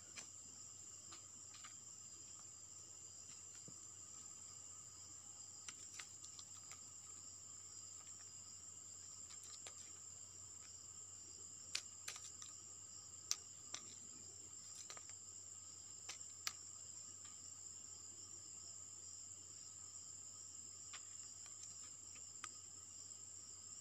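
Faint, steady high-pitched chirring of crickets, with a handful of sharp clicks in the middle.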